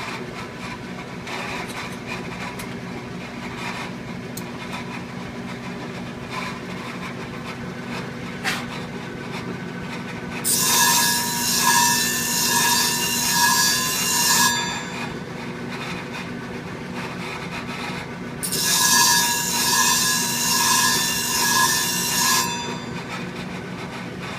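Clipper blade ground against a running sharpening wheel charged with grit: two harsh grinding bursts of about four seconds each, pulsing with the back-and-forth passes, while the motor hums steadily underneath.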